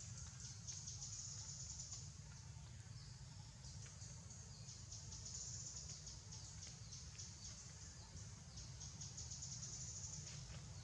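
Forest insects buzzing in a high, rapidly pulsing drone that swells and fades several times, over a steady low rumble.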